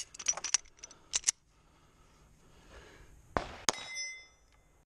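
Pistol fired at steel plate targets: a shot about three and a half seconds in, with the struck steel plate ringing after it. Before it, a quick run of sharp clicks and clacks in the first second and a half.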